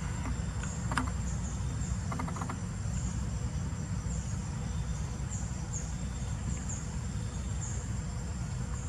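Insects chirping in short high calls at irregular intervals over a steady low rumble, with a few faint clicks.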